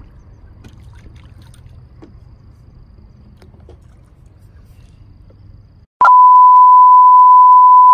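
Faint water splashing and lapping as a small hooked fish thrashes at the surface. About six seconds in, a loud, steady censor bleep cuts in abruptly and holds, covering swearing.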